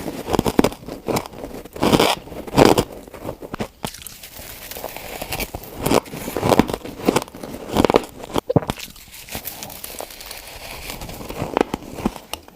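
Ice being bitten and chewed close to the microphone: irregular crisp crunches and crackles, some louder bites standing out among smaller crackling chews.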